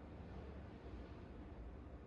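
Faint steady ambient rumble and hiss, with no distinct events.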